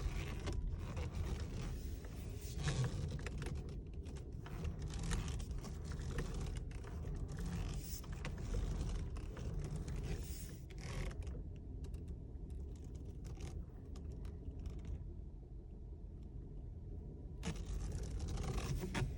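Repeated clicking and creaking from a broken steering-wheel clock spring in a 2018 VW Passat B8, over a steady low hum. The clicking stops for several seconds past the middle and starts again near the end.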